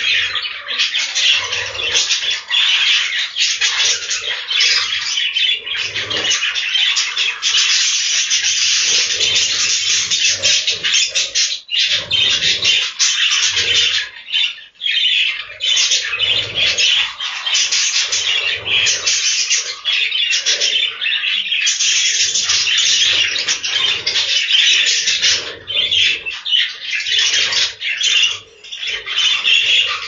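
A flock of budgerigars chattering and squawking without a break, with wing flaps as birds fly between perches.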